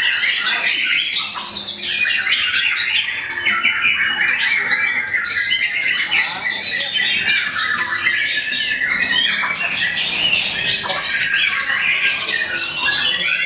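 Many caged songbirds singing at once in a dense, continuous tangle of rapid chirps, trills and harsh notes, the competing birds of a contest round.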